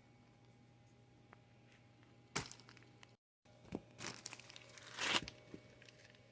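Toy packaging being torn open by hand: a few short, faint tearing and crinkling sounds, the longest about five seconds in.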